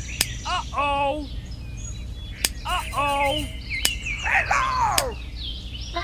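Short, high, arching chirps, mostly in quick pairs, with a few sharp clicks between them and a longer falling chirp cluster near the end.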